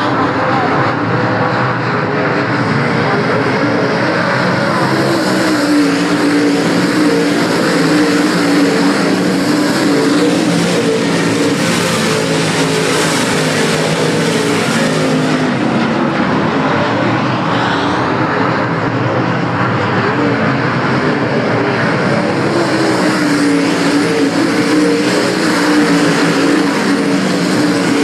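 Dirt-track race car engines running hard around the oval, a loud, unbroken roar of several cars that swells and falls back as they pass.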